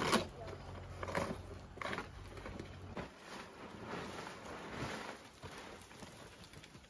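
A heavy rug being spread and tugged straight on a packed-dirt floor: rustling and dragging cloth with footsteps, and a few sharp knocks in the first two seconds.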